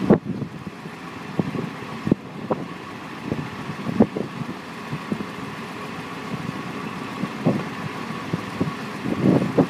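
Truck engine running steadily while it drives the hydraulic hoist that raises an aluminium end-dump trailer box, with a faint steady whine over the engine. Wind gusts on the microphone at the start and again near the end.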